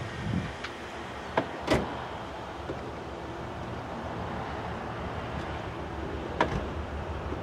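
Norfolk Southern diesel-electric freight locomotives running as they approach, a steady low rumble, with a few sharp clicks, the loudest near the start and one near the end.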